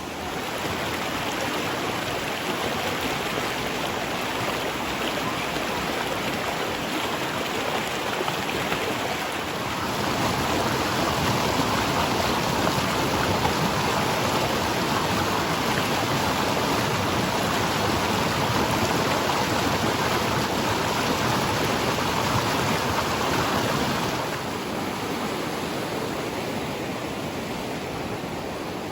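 Rushing stream water, a steady hiss that grows louder about ten seconds in and eases off again near the end.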